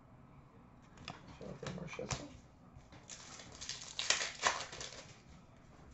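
Trading cards being handled: soft rustles, slides and light clicks as cards are flipped and shuffled, busiest about three to four seconds in.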